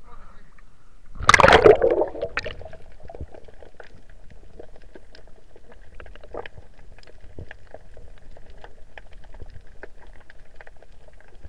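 A splash and rush of water about a second in as the camera plunges below the sea surface, then underwater sound: a steady scatter of faint clicks and crackles.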